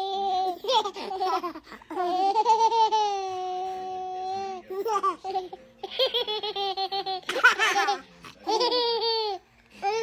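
Baby laughing hard in high-pitched bursts, with a long drawn-out laugh held for about two and a half seconds a couple of seconds in.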